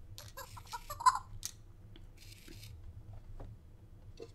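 Fingerlings baby monkey toy making a few short chirping blips among small clicks, then a brief hiss and a few more clicks near the end.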